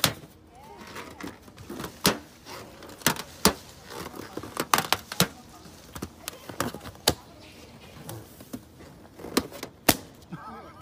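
Rubber party balloon squeaking and rubbing as a macaque grips it and mouths it: scattered sharp squeaks and clicks, a few of them loud.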